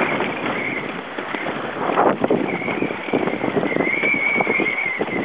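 Wind buffeting the microphone and lake chop splashing and slapping against the hull of a sailing outrigger canoe, with a high, wavering whistle that comes and goes several times.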